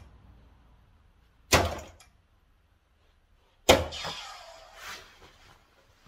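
Two soft-tip darts hitting a Gran Board 3s electronic dartboard, each a sharp clack, about two seconds apart. After the second hit the board plays a short electronic sound effect for about a second.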